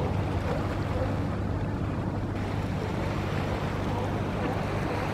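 Steady seaside background of wind and water with a constant low hum underneath.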